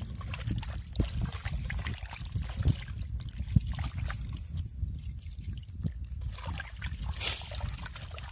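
Water trickling from a glass bottle into a steel pot while hands wash raw chicken pieces in it, with soft splashes and knocks against the pot. A steady low rumble runs underneath.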